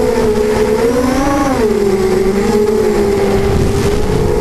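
FPV racing quadcopter's brushless motors and propellers whining steadily, the pitch rising briefly about a second in, then dropping lower for a few seconds as the throttle eases, and climbing again near the end.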